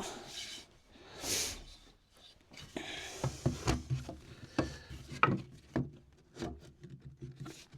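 Wooden spindles being worked into the holes of a gate rail during a dry fit: a brief sliding rub about a second in, then a run of irregular wooden knocks and taps as the pieces are nudged into place.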